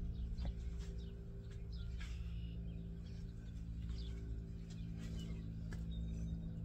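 Faint birds chirping now and then over a low, steady hum.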